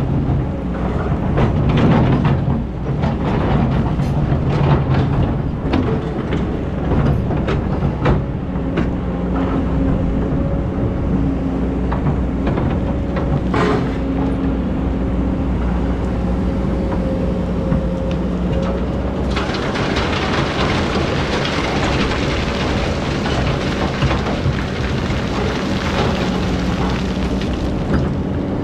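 Excavator diesel engine running steadily, with irregular knocks and clatter over the first several seconds. About two-thirds of the way through, a steady hiss joins the engine.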